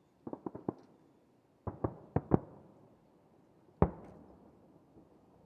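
Aerial firework shells bursting: a quick run of four bangs, another four about a second later, then a single loudest boom near four seconds in that echoes away.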